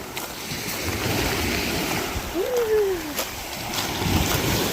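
Water splashing and sloshing, with waves washing. About halfway through, a single short tone rises and then falls in pitch.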